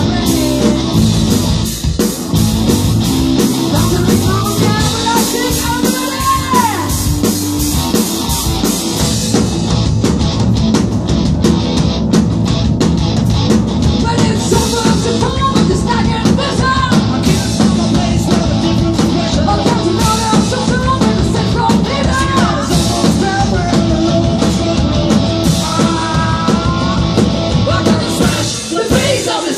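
Live rock band playing: electric guitars and a drum kit, with sung vocals over them.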